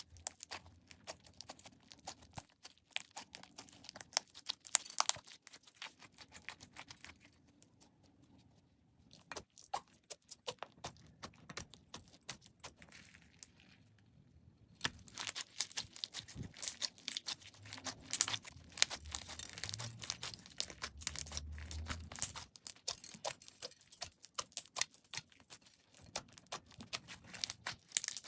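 Slime being squeezed and stretched by hand, giving dense crackling and clicking pops that come in bouts with short lulls between.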